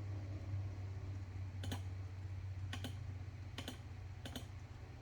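Four sharp clicks at uneven intervals, each a quick double like a key or mouse button pressed and released, over a steady low electrical hum.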